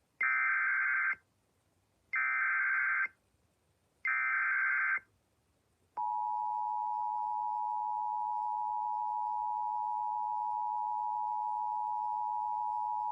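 Emergency Alert System broadcast opening: three short bursts of SAME header data tones, each about a second long and a second apart, then about six seconds in the steady two-tone EAS attention signal begins and holds. Together they announce that an emergency alert, here a severe thunderstorm warning, is about to be read.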